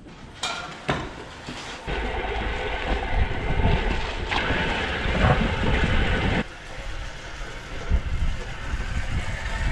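Small petrol engine of a walk-behind yard scraper running while its rubber blade scrapes slurry across concrete. A steady, dense mechanical noise starts about two seconds in and changes suddenly about six and a half seconds in.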